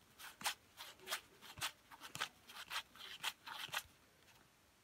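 Board game cards being slid off one another while flipping through a hand, a quick run of short swishes, several a second, that stops about a second before the end.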